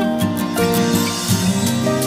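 Instrumental background music with a melody of sustained notes that change every fraction of a second.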